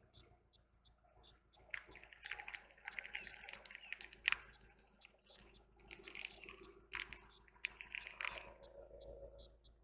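Car tyre rolling over a clear plastic blister strip of small coloured balls, the plastic crackling and the balls squashing in an uneven run of crunches, with one sharper snap about four seconds in.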